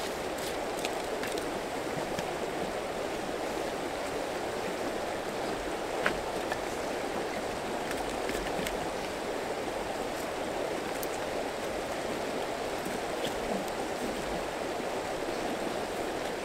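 Steady rushing of a shallow mountain river running over rocks. A few short knocks of split firewood are set onto a stone fire ring, the clearest about six seconds in.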